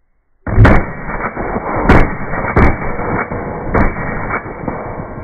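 Short-barreled AR-15 with a 7-inch 5.56 barrel firing a rapid string of shots, roughly three a second with uneven spacing, starting about half a second in. Some shots are louder than others.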